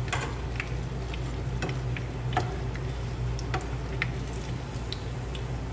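Grated-vegetable fritters shallow-frying in hot oil: irregular crackles and pops from the oil, a few a second, over a steady low hum.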